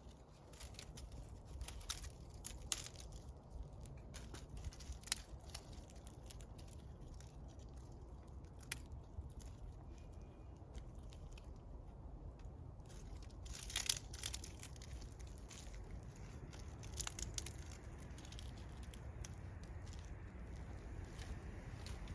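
Wood campfire crackling, with irregular sharp pops from the burning wood over a steady low rumble; a cluster of louder pops comes about two-thirds of the way through.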